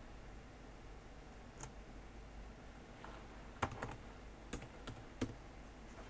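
A few scattered keystrokes on an ASUS ROG Strix GL703GS laptop's keyboard as a short search is typed. The clicks are faint and the loudest comes about halfway through.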